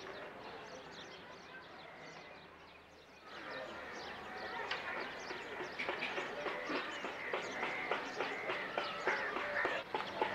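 Many birds chirping and chattering together, the chorus growing louder about three seconds in.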